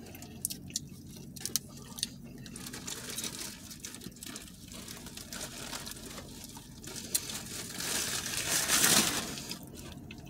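Paper napkin and fast-food burger wrapper crinkling and rustling as food is handled, with scattered small clicks. The rustling grows loudest near the end as the burger is unwrapped.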